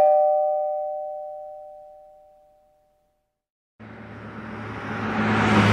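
Two-tone doorbell chime, a ding-dong, ringing out and fading away over about three seconds. About four seconds in, a vehicle approaches with a rising rush and a low engine hum, growing louder toward the end.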